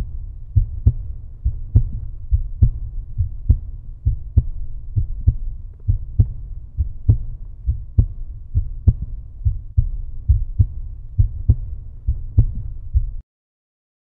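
Deep, thudding rhythmic beat, a strong thud a little under once a second with softer thuds between, that cuts off suddenly near the end.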